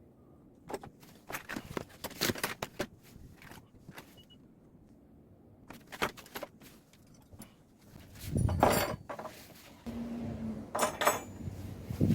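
Irregular clinks, clicks and knocks of small hard objects being handled, with a heavier, deeper clatter about eight and a half seconds in.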